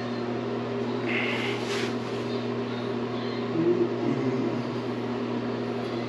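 Steady low mechanical hum filling a small bathroom, with a short hiss about a second in.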